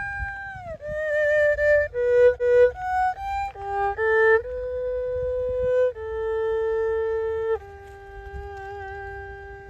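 A solo bowed string instrument plays a slow melody live, one note at a time, with held notes and sliding changes in pitch between them, over a low rumble.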